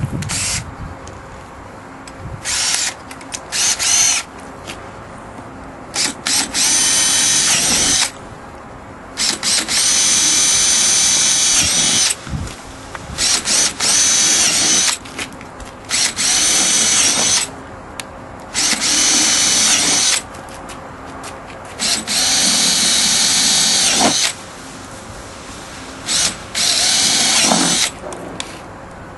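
Makita 18V cordless drill running in about nine short bursts of one to three seconds each, with brief pauses between, as it drills a series of holes through a stainless steel template into a bumper cover.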